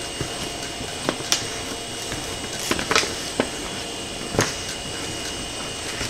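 Plastic squeegee pressing an adhesive PEI sheet down onto a steel flex plate, giving a handful of short sharp scrapes and clicks at irregular intervals over a steady background hum.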